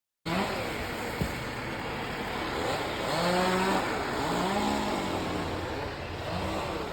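Chainsaw engine revving up and down over a steady noisy background, with a single sharp click about a second in.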